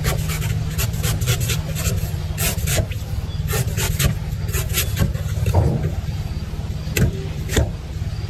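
Knife shaving the fibrous husk off a young green coconut: a quick run of short scraping cuts, with a couple of sharper knocks near the end. A steady low hum runs underneath.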